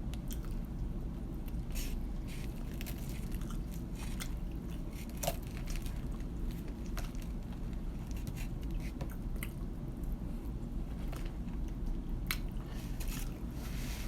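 Eating KFC food close to the microphone: chewing and biting, with scattered short crunches, over a steady low hum.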